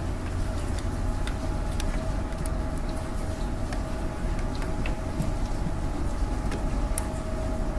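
Rain on an apartment window: scattered sharp drop ticks over a steady low rumble of city traffic, with a faint steady hum.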